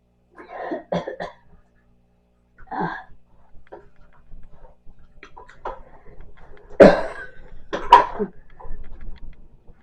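A woman coughing and clearing her throat in short bursts: a couple about a second in and another near three seconds, with the loudest coughs near seven and eight seconds.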